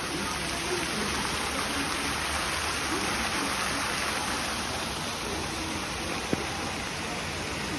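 Steady, even rushing noise, with faint voices low underneath and a single short click about six seconds in.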